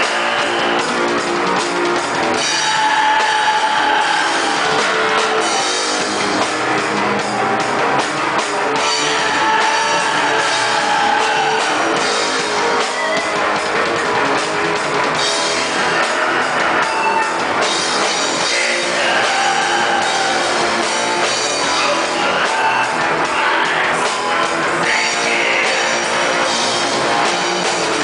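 Live black metal played by a full band: guitars and a drum kit at a steady, loud level, with a melody line rising and falling over the top.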